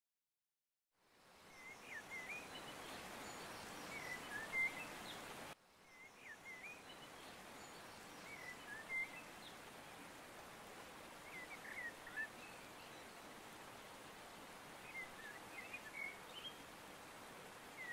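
Faint outdoor ambience: soft steady hiss with birds chirping briefly every few seconds. It starts about a second in and breaks off for a moment near six seconds before carrying on.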